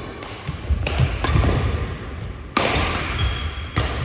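Badminton rally on a wooden indoor court: a string of sharp racket hits on the shuttlecock, the loudest about two and a half seconds in. Players' feet thud on the floor between the hits, with a couple of brief high shoe squeaks.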